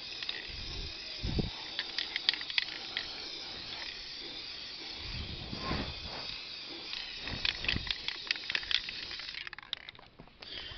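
Aerosol can of Rust-Oleum Painter's Touch 2X spray paint spraying in a steady hiss, with scattered short clicks and a few dull handling thumps. The hiss cuts off about nine and a half seconds in.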